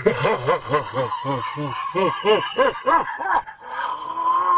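A man's exaggerated pirate-style laugh: a run of about a dozen 'har' syllables at roughly three a second, then a long drawn-out note near the end.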